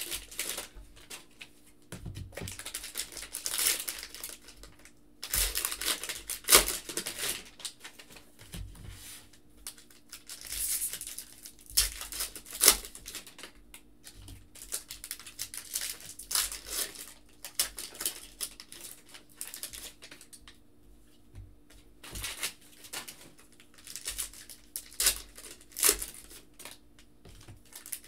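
Plastic trading-card pack wrappers crinkling and tearing as packs are ripped open and handled, in irregular bursts.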